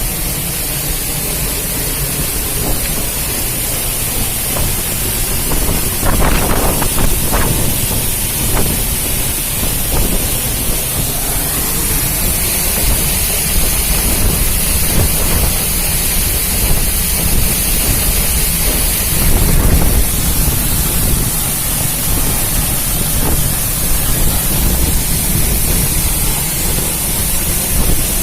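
Waterfall: loud, steady noise of falling, rushing water, with a few brief surges.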